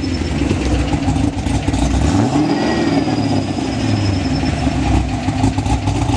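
Pontiac GTO's LS V8, fitted with CNC-ported Trick Flow heads and running untuned, idling through long-tube headers, catless mid-pipes and Borla XR1 mufflers. A little past two seconds in the engine note rises briefly and settles back.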